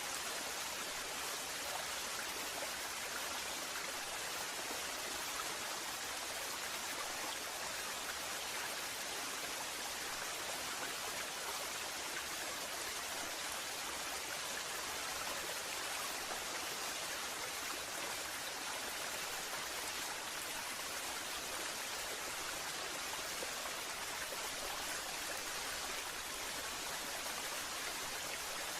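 Waterfall: water falling and rushing in a steady, even hiss with no breaks.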